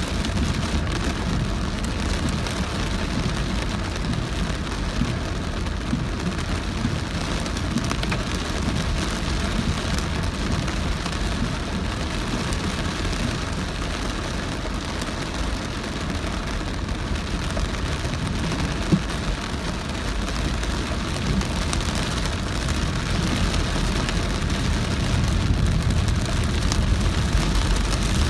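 Heavy rain on a moving car, mixed with the car's steady low rumble of tyres and engine.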